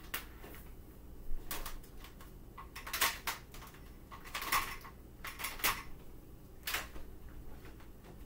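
Handling noise from an upright vacuum's power cord being unwound from its hooks and laid out across a tile floor: about eight light, irregular clicks and clatters spread over several seconds.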